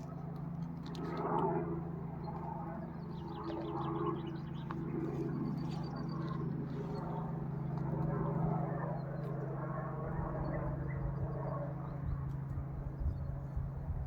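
Helicopter flying overhead: a steady low drone, with small birds chirping over it.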